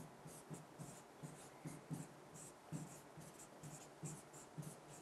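Marker pen writing on a whiteboard: a run of short, faint scratchy strokes, two or three a second.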